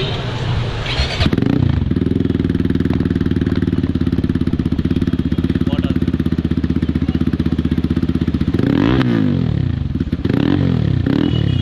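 Crossfire CF 250 Twin motorcycle's two-cylinder engine idling steadily, then revved twice near the end, each blip of the throttle rising and dropping back to idle.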